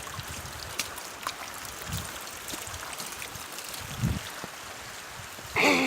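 Rain falling, an even hiss of water, with two dull low thumps about two and four seconds in.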